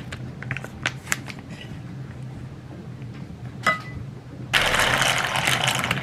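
Kitchen handling sounds: a few light clicks and knocks, then a single ringing clink of dishware. Near the end comes about two seconds of loud rattling, rushing noise as dry pasta is tipped into a saucepan of boiling water. A steady low hum runs underneath.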